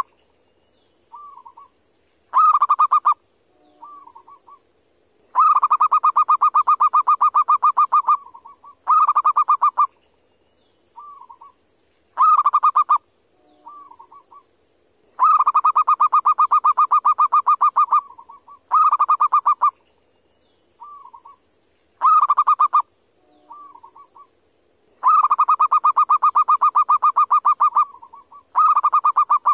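Zebra dove (perkutut) calling: phrases of fast staccato coos, each set a short burst, a rolling burst of about three seconds, then another short burst, repeating about every ten seconds. Soft single coos fall in the gaps, over a steady high hiss.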